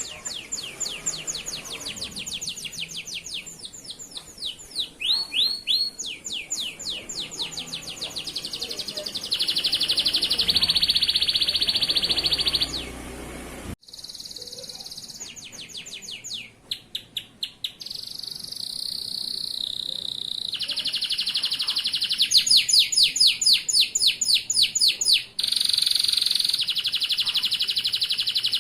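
Male domestic canary in full song: long runs of rapid repeated trill notes alternating with sustained buzzy rolls, high-pitched and continuous, broken off sharply once about halfway through.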